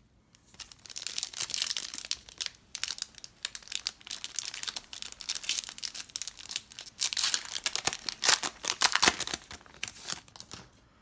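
A trading-card pack's plastic wrapper being crinkled and torn open by hand. It makes a dense run of crackles, loudest in the second half.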